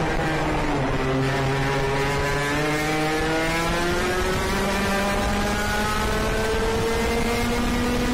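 IAME KA100 kart's 100cc two-stroke engine accelerating hard, its pitch low at first and climbing steadily for about seven seconds before levelling off near the end.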